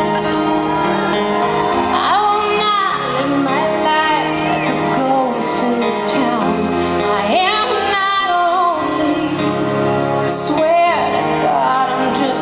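A woman singing a slow ballad live into a microphone, accompanied by an acoustic guitar.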